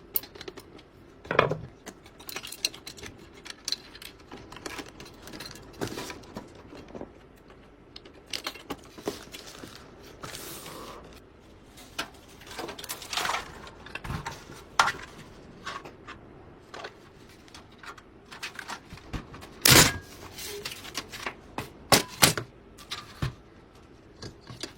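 Irregular clicks, clacks and knocks of hard plastic and metal computer parts being handled and fitted together, with one louder knock about three-quarters of the way through.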